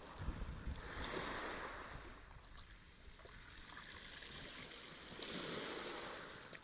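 Small sea waves breaking and washing over shingle against a wooden groyne, swelling twice, about a second in and again near the end, with a low wind rumble on the microphone.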